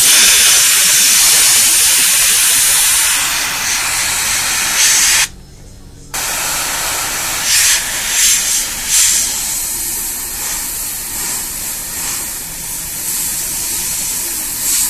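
Airbrush spraying paint with a steady hiss, run at about 60 to 80 psi. The hiss cuts out for under a second about five seconds in, then comes back with a few short, louder spurts.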